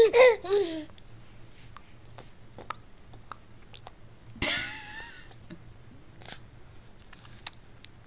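Infant gumming spoon-fed baby food: small wet mouth clicks and smacks, after a high pitched vocal sound that trails off in the first second. One short breathy vocal sound with a falling pitch comes about four and a half seconds in.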